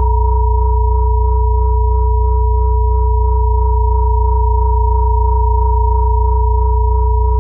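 Layered steady sine tones of a binaural-beat meditation track: a low 60 Hz hum under pure tones at 432 Hz and 963 Hz, held unchanging.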